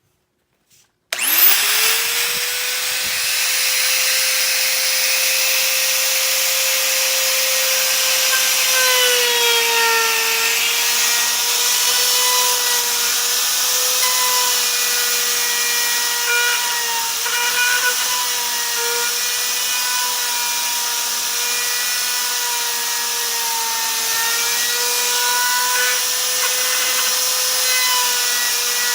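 Electric router starting up, spinning quickly up to full speed, and then running steadily while cutting a door hinge mortise in wood. From about nine seconds in, its pitch dips and wavers slightly as the bit takes load.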